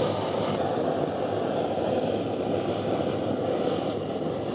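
Gas blowtorch flame burning with a steady rushing noise as it glazes a thin layer of sugar on a crème brûlée, caramelising the topping.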